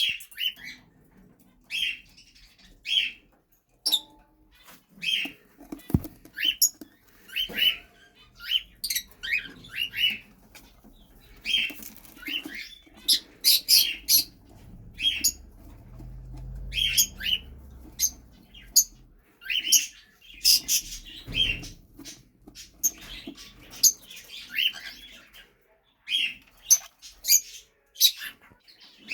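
Cockatiels giving short, sharp chirps over and over, about one a second, with a couple of brief knocks among them.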